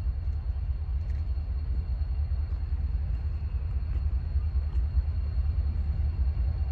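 Low, steady rumble of a diesel freight locomotive approaching from a distance, growing slightly louder toward the end, with a faint thin high tone running above it.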